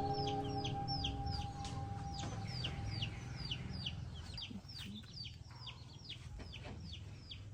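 A bird chirping in a fast run of short, high, falling notes, about four a second, over background music that fades out in the first few seconds.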